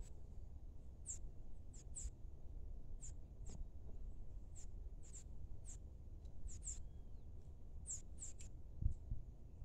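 Small birds chirping: short, high, sharp chips, about fifteen scattered unevenly, some in quick pairs, over a faint low rumble. A soft low thump near the end.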